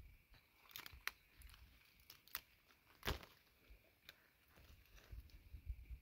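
A handful of faint, sharp clicks and crackles over near silence, the loudest about three seconds in.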